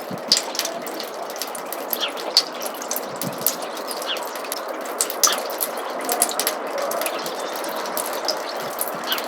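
Meltwater from thawing snow dripping and trickling in a roof gutter: a steady trickle with many quick, irregular drips landing on top of it.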